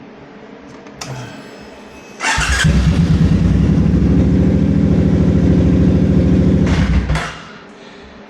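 Motorcycle engine being started: a sharp burst about two seconds in, then about five seconds of loud, evenly pulsing engine sound that stops abruptly.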